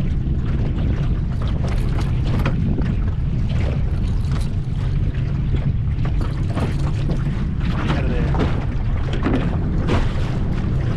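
Outboard motor of a small aluminium boat running steadily at trolling speed, a constant low hum, with wind buffeting the microphone.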